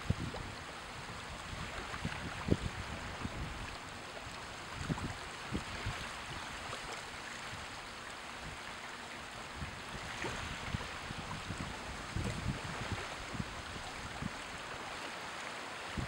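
Small waves lapping gently over a shallow sandy shore at low tide, a steady wash with a few soft low thumps scattered through it.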